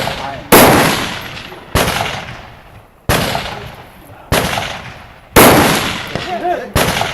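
Rifle shots fired in steady succession, six in all, about one every 1.2 seconds. Each is a sharp crack with a long echoing tail.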